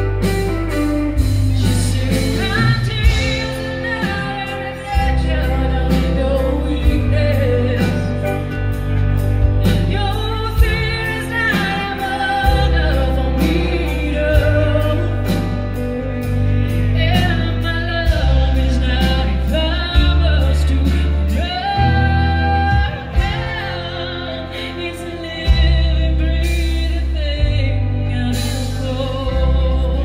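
Live band playing a song: singing over ukulele, electric guitar and bass guitar, with a heavy, steady bass line.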